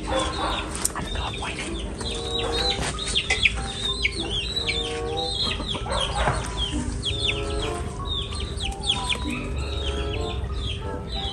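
Backyard chickens clucking, with many short, high, falling calls running through the whole stretch, over quiet background music.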